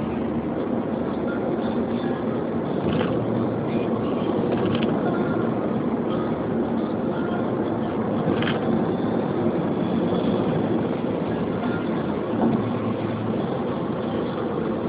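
Steady road and engine noise inside a moving car's cabin, with a constant low hum and a few faint ticks.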